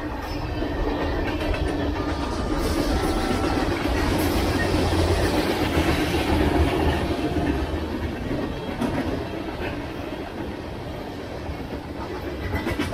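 Freight train cars rolling past close by: a steady rumble and rattle of steel wheels on rail, swelling a little midway and then easing.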